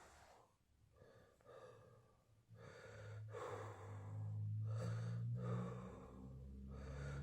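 Wheezy, laboured breathing: a series of noisy breaths in and out with short pauses between them. From about a third of the way in, a low humming tone runs under the breaths and is the loudest part.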